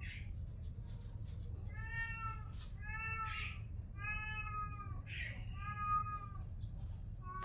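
Cat meowing four times, about once a second, each meow a short arched call, over a steady low hum.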